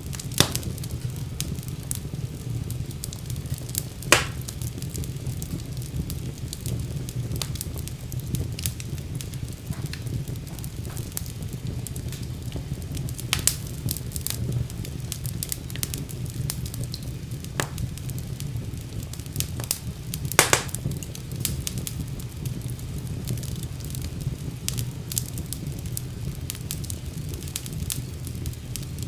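Wood fire burning in a fireplace, with a steady low rumble and irregular crackles throughout, broken by a handful of louder single pops.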